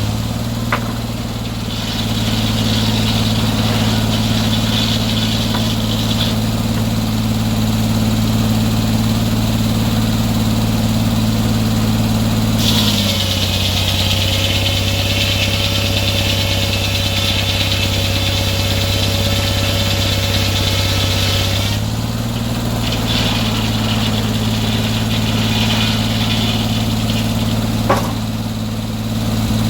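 Sawmill engine running steadily. From about 13 to 22 seconds in, its note drops slightly and a strong higher hiss rises over it as the saw takes a cut, with a shorter, weaker spell of the same early on and a sharp click near the end.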